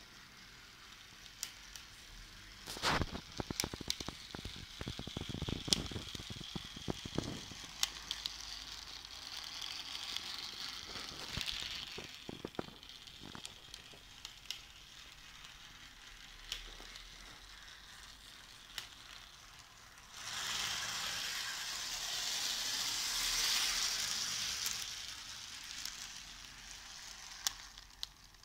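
Lima model of the SNCF CC 40101 locomotive, its original G-type motor replaced by a CD-ROM drive motor, running at low speed on its track: a faint whirring hiss from the small motor and gears, with scattered clicks. The hiss grows louder for several seconds from about twenty seconds in.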